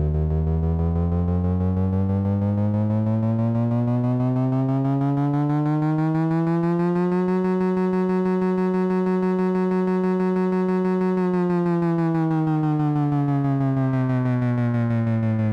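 Moog analog synthesizer playing one sustained tone rich in overtones. It glides slowly up in pitch for about seven seconds, holds steady for about four, then glides back down.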